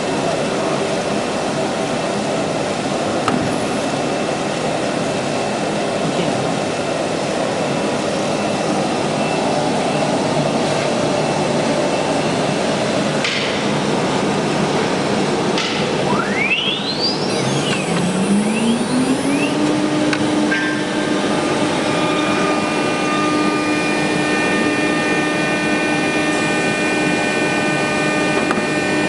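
ATC CNC router running with a steady rushing machine noise; a little over halfway through, its spindle spins up, the whine rising in pitch for about two seconds and then holding a steady high pitch.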